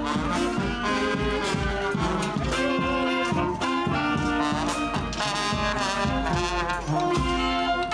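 Brass band playing a tune over a steady drum beat, with one long note sliding down in pitch through the first few seconds.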